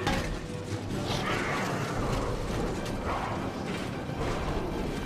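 Film battle soundtrack: a dense din of clanking and creaking, with music underneath.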